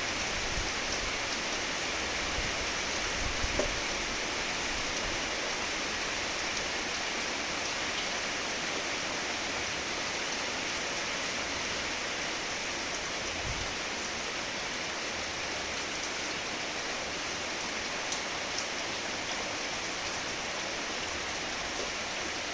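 Steady rain falling, an even dense hiss of drops, with a few slightly louder drips or knocks standing out now and then.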